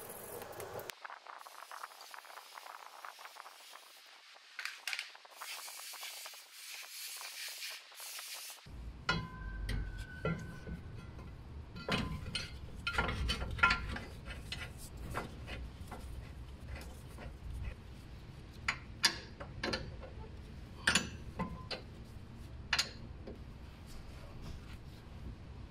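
A hand wire brush scrubbing rust and dirt off a brake caliper carrier bracket in short scratchy strokes. Then come metallic clinks and knocks as the bracket and an 18 mm combination wrench are handled against the wheel hub.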